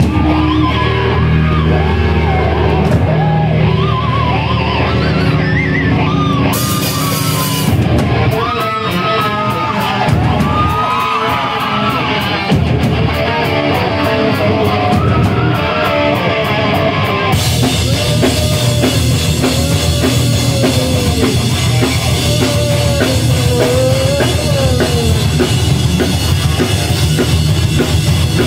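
Pop-punk band playing live: electric guitars, drum kit and singing, loud and steady. About two-thirds of the way in, the sound turns brighter and fuller as the cymbals come in.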